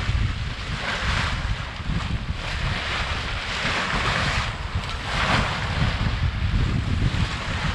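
Water rushing and splashing along the hull of a Contessa 26 sailboat as it moves through open-ocean swells, rising in hissing surges every second or so as waves break past. Heavy wind buffeting on the microphone rumbles underneath.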